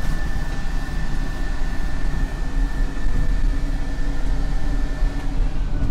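Train lavatory's sensor-operated hand dryer blowing: its motor whine holds a steady pitch, then winds down about five seconds in. The low rumble of the moving train runs underneath.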